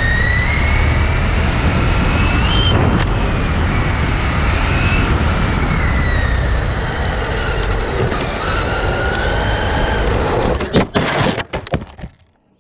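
A Traxxas Rustler's brushless electric motor whining, its pitch rising and falling with the throttle, over a loud steady rush of road and air noise. Near the end come a quick series of sharp knocks as the car tips over, and the sound drops away almost to nothing.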